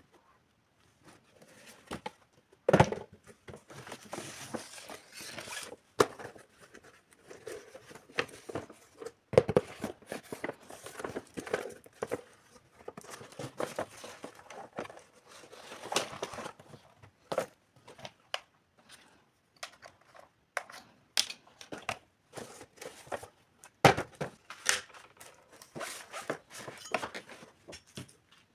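Plastic packaging crinkling and tearing as it is handled, with frequent sharp clicks and taps of small toy kitchen pieces being picked up and set down.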